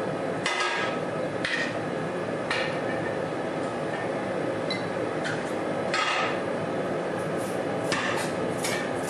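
Air-driven power hammer striking hot steel bar stock: a few single blows about a second apart, then near the end a fast, even run of repeated blows, over a steady hiss.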